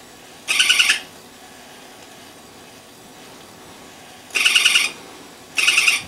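Battery-operated swinging plush monkey toy giving short bursts of electronic monkey chatter: three rapid, high, trilling calls, one about half a second in and two close together near the end.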